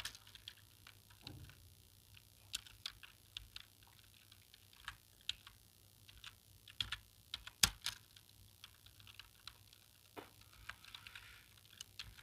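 Computer keyboard keystrokes at a slow, uneven pace: scattered single clicks and short runs of keys, one louder key press (likely the space bar) about eight seconds in.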